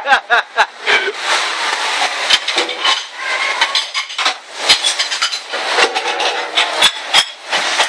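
Ceramic plates and dishes clattering and clinking as they are stacked and handled at a restaurant dish station, with several sharp knocks over a steady kitchen din.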